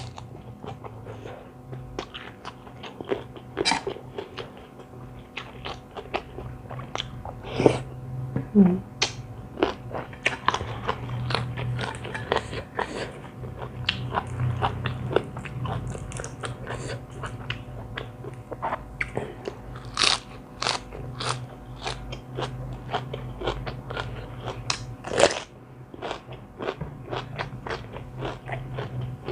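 Close-miked eating: irregular crunching, biting and chewing of mouthfuls of spicy seafood rice-noodle salad with raw long beans, with wet smacking between the crunches.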